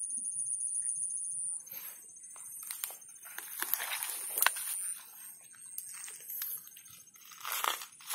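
Hand splashing and stirring in shallow muddy ditch water while feeling for an eel hole, in a run of irregular splashes and sloshes. A steady high-pitched drone sounds at first and cuts off about a second and a half in.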